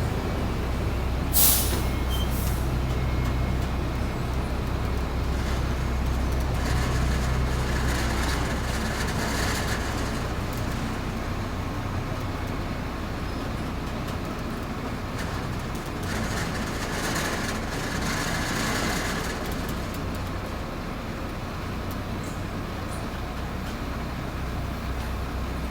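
Bulldozer's diesel engine running steadily with a low hum, with one sharp short sound about a second and a half in and two stretches of louder rushing noise partway through and later on.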